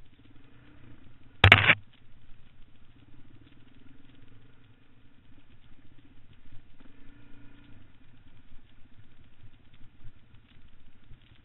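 Dual-sport motorcycle engine running at low revs over a rocky trail, its note swelling and falling with the throttle. A single loud, sharp knock comes about a second and a half in.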